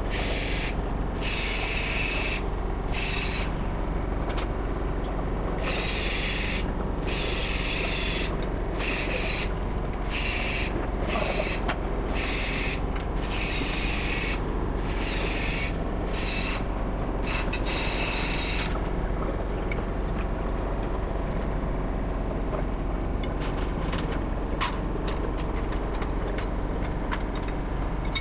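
Steady machinery hum with a rasping hiss that cuts in and out irregularly, about once a second, and stops about two-thirds of the way through.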